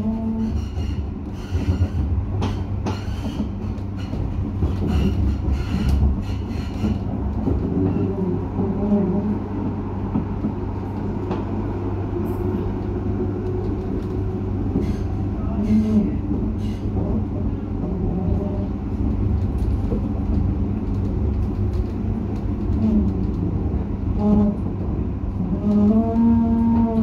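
Croydon tram running along the line, heard from inside the passenger car: a steady rumble of wheels on rail. Sharp clicks from the wheels crossing rail joints come thick in the first several seconds. A pitched tone rises near the end.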